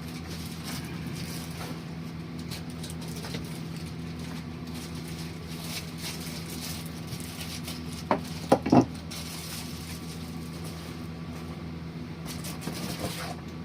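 A steady low machine hum runs throughout. Two short, loud sounds break in a little after eight seconds.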